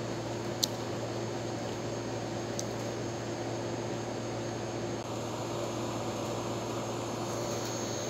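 Steady background hiss with a constant low hum, and two faint sharp ticks about half a second and two and a half seconds in.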